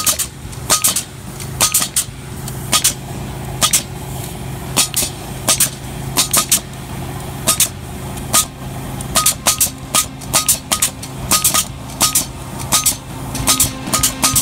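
Pneumatic staplers firing staples through an erosion control blanket into the soil: sharp cracks, irregular at one to three a second and coming faster in the second half, each with a brief metallic ring. A steady machine hum runs underneath.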